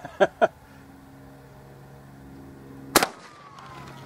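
A single shotgun shot about three seconds in, from a smoothbore shotgun firing an all-copper slug, with a short ringing tail. A steady low hum runs underneath.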